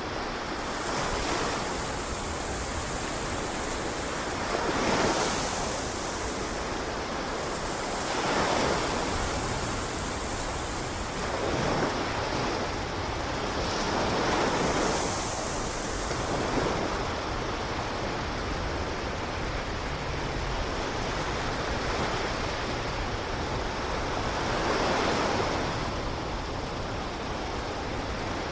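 Ocean surf: a steady rush of waves breaking, swelling louder with each wave every few seconds.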